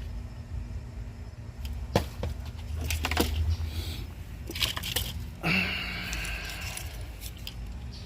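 Clicks and knocks of plastic parts being handled, a purge valve assembly and its fittings, with a sudden short rushing noise a little past halfway and a steady low hum underneath.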